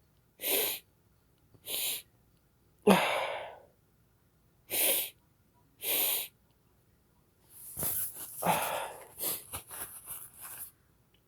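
A person sniffing hard through the nose to snuff Chhinkni sneezing powder: five forceful sniffs about a second apart, then a quicker, ragged run of sniffs and snuffles near the end.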